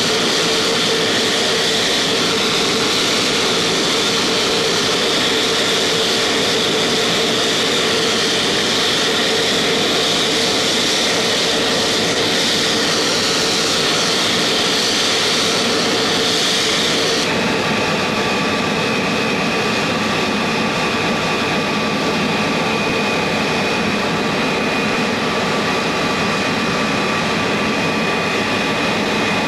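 Jet turbine noise, a loud steady whine and rush, as the F-100 Super Sabre is started from a ground air-start cart connected by hose. About 17 seconds in the sound changes abruptly: the high hiss drops away and a lower, steadier whine takes over.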